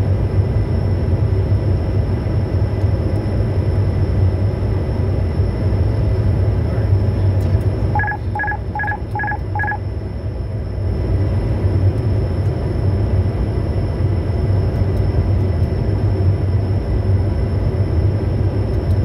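Steady cockpit noise of a Bombardier Challenger 350 business jet on final approach: a low hum with airflow noise. About eight seconds in, five short electronic beeps sound in quick succession.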